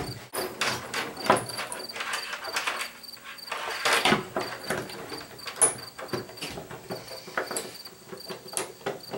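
Steel body-grip trap (a Duke 120) being worked into its bracket on a wooden mink box: irregular metallic clicks, clanks and knocks of the trap's springs and jaws against the mount and the wood. Crickets chirp steadily behind.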